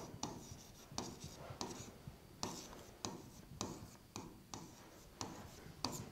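Pen writing on an interactive whiteboard: faint, short scratchy strokes and taps in an uneven run, about two or three a second.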